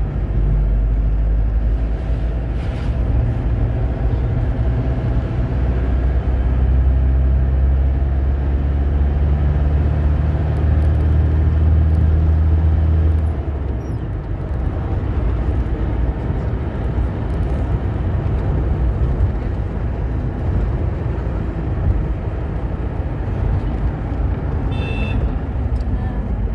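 Car engine and road noise inside a moving car's cabin: a steady low engine drone with tyre noise. The low engine drone drops away about halfway through, leaving a lighter running sound, and a short high tone sounds near the end.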